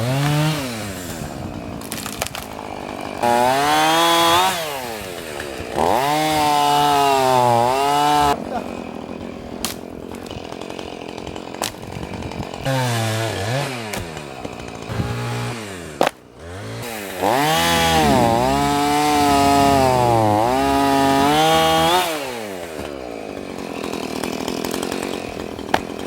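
Two-stroke chainsaw running, twice opened to full throttle for about five seconds, its pitch sagging and recovering as it cuts into wood. Between the cuts it runs at a lower, quieter level.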